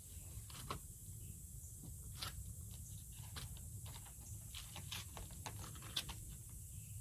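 Irregular small clicks and taps of hands working at a chainsaw's plastic oil-tank cap, trying to twist it loose, over a low steady hum. The sharpest click comes about six seconds in.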